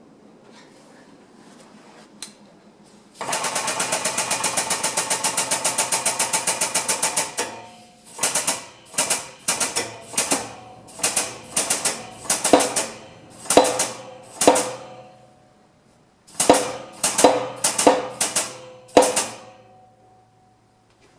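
A wrench clicking, most likely a ratchet on the wheel-hub fasteners: a steady run of rapid clicks lasting about four seconds, then a dozen or so short bursts of clicks, like quick back-and-forth strokes of the handle.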